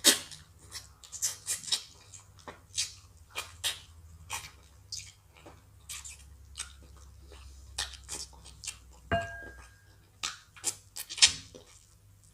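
Eating sounds from people eating egusi soup and wheat fufu: irregular wet smacks and clicks of lips and chewing, a few each second. A short ringing tone sounds about nine seconds in.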